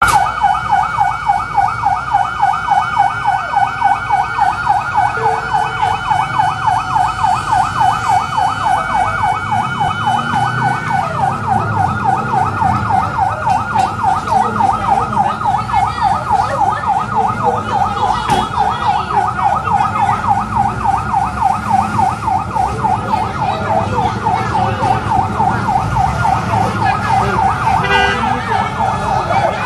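Emergency vehicle siren wailing in a fast, continuous up-and-down yelp, with a low rumble of traffic and activity underneath.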